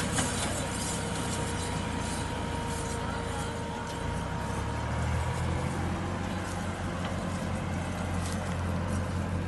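Large farm-machinery engine running steadily with a low, even hum.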